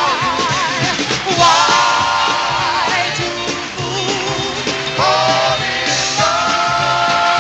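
A 1950s street-corner vocal group singing a rock and roll number in close harmony over a band, the voices wavering with vibrato; from about six seconds in they hold one long chord.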